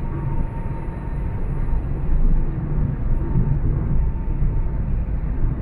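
Steady road noise of a car travelling at highway speed: a constant low rumble of tyres and engine with no distinct events.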